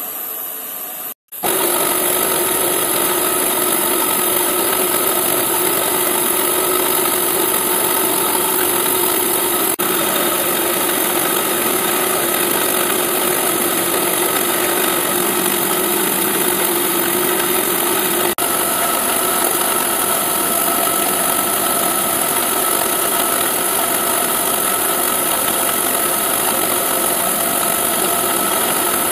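A CNC milling machine engraving a copper-clad circuit board, its slow spindle (top speed about 2150 rpm) turning a 0.2 mm engraving bit through the copper. It makes a steady mechanical hum with several constant tones, starting after a brief cut about a second in.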